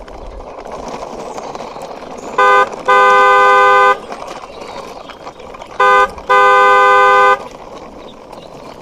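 Car horn honking in a short-then-long pattern, a brief beep followed by a held honk of about a second, repeated once about three seconds later. Beneath it runs a steady rolling noise from a toy car being pushed along by hand.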